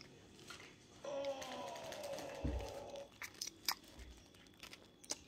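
A child's mouth sounds while eating noodles: a drawn-out vocal hum of about two seconds that sinks slightly in pitch, then a few sharp wet clicks and smacks of the mouth and finger.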